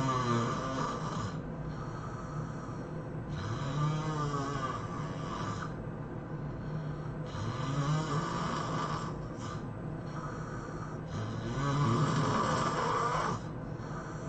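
A person snoring heavily in sleep: four long pitched snores, about one every three and a half seconds, the pitch of each rising and then falling.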